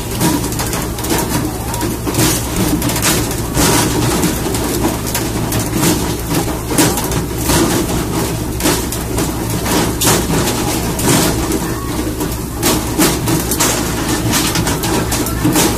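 Steady low engine drone, with frequent sharp knocks and thumps over it.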